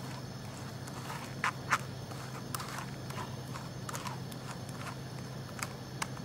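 Silicone spatula pressing and scraping blended watermelon pulp against a stainless-steel mesh strainer to push the juice through and hold back the seeds: soft, irregular scrapes and clicks over a steady low hum.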